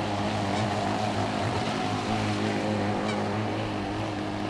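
Radio-controlled model speedboat running at speed across open water, its motor a steady drone over a hiss of water.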